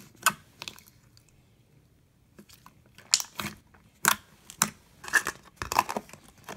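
Fingers poking and pressing glossy caramel slime in a plastic tub, making wet clicks and pops: a few at first, a pause of about two seconds, then a run of clicks.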